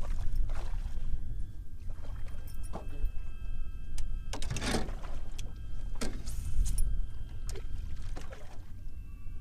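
A hooked chain pickerel splashing at the side of the boat as it is landed by hand, a string of short splashes and knocks over a steady rumble of wind on the microphone.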